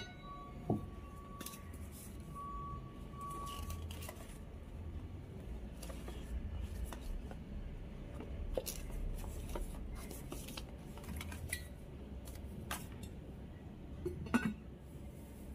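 Enamelware saucepan lid lifted off with a clink, then a paper leaflet handled and unfolded with light crackling rustles, and the lid set back on the enamel pot with a louder clink about fourteen seconds in.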